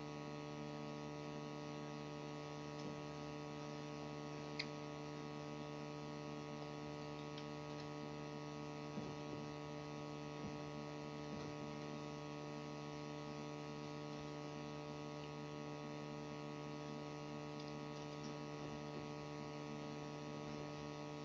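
Steady electrical mains hum, with a few faint clicks and one sharper click about four and a half seconds in.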